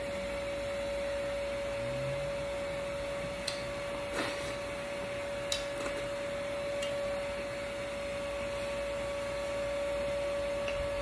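Steady mechanical hum with one constant mid-pitched tone, and a few faint clicks and taps a few seconds in.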